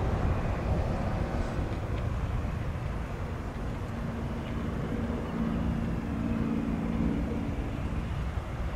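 Jet airliner engines at the airport: a steady low rumble, with a low hum that comes in about halfway through and fades near the end.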